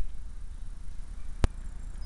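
Low rumble on a small spycam's microphone as it is held and moved, with two sharp handling clicks, one right at the start and one about a second and a half in.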